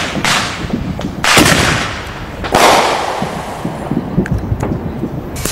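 Fireworks going off: three loud booms about a second apart, each with a long echoing tail, then a few faint pops near the end.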